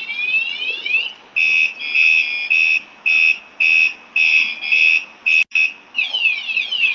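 WSDCAM anti-theft bike alarm siren sounding, really loud: rapid rising electronic sweeps, then a run of steady high beeps about two a second, then falling sweeps near the end.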